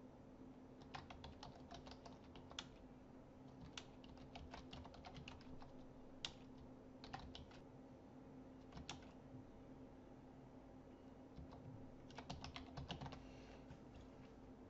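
Faint typing on a computer keyboard, in short runs of keystrokes, with a pause of about three seconds before a last run near the end.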